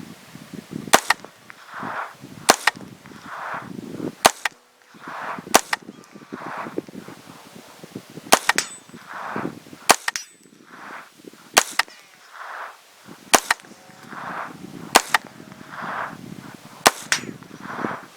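Ten shots from a semi-automatic .22 LR short-barrelled rifle (Smith & Wesson M&P 15-22), one every second and a half to two seconds. Each sharp crack is followed by a fainter, duller sound less than a second later.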